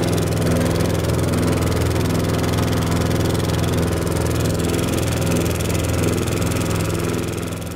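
Engine of a small outrigger boat running steadily under way, a low, even drone with water and wind noise over it, easing slightly near the end.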